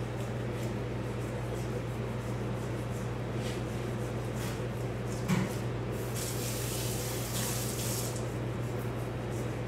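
A kitchen knife scraping over the skin of a whole raw salmon in short strokes, over a steady low hum. A soft knock comes about five seconds in, and a hiss lasting about two seconds follows.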